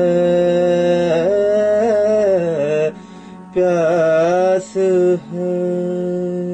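Soundtrack music: a solo voice singing slow, long-held, wavering notes in a chant-like style. The phrases break off briefly about three seconds in, and the music closes on a long held note.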